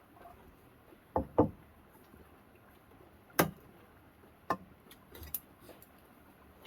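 A handful of sharp, irregular knocks: a quick pair about a second in, then single knocks spread over the next few seconds.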